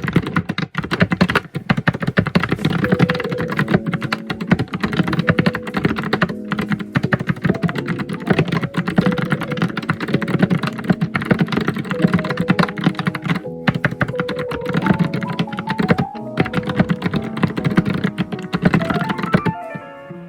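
Fast, continuous typing on a computer keyboard: a dense, irregular stream of key clicks and clacks. Melodic background music plays under it.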